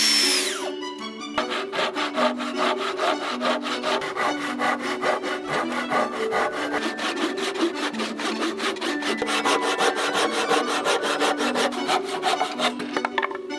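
A hand saw cutting wood in quick, even back-and-forth strokes, several a second, starting about a second and a half in and stopping near the end, over background music. A loud steady power-tool noise cuts off in the first second.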